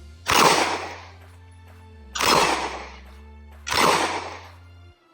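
Three 9mm pistol shots from a Glock 17 fired at a steel dueling tree, about a second and a half to two seconds apart, each dying away over most of a second, over steady background music that stops shortly before the end.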